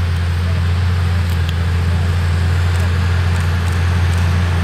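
Tractor diesel engine running steadily, a constant low drone with no change in pitch.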